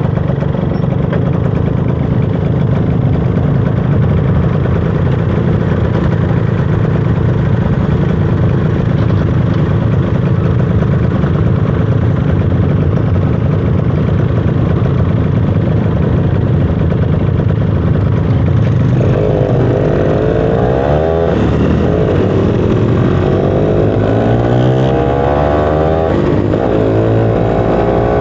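Motorcycle engine running at a steady speed, then from about two-thirds of the way through rising and falling in pitch again and again as it revs up and eases off.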